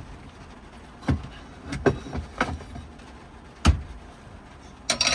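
A few separate knocks and clunks of things being handled, the fourth the loudest and deepest, then a short burst of brighter clatter near the end.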